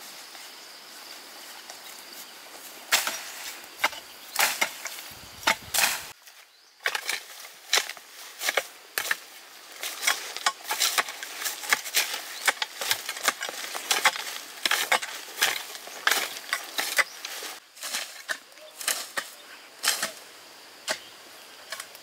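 Repeated sharp strikes on wood, irregular and at times several a second, starting about three seconds in with a short break a few seconds later.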